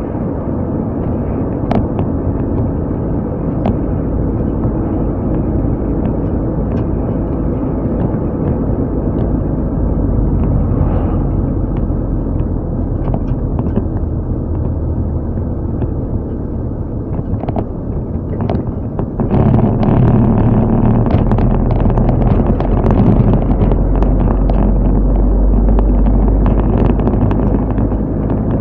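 Car driving, with a steady engine drone and road noise that get louder about two-thirds of the way through, with small scattered clicks over it.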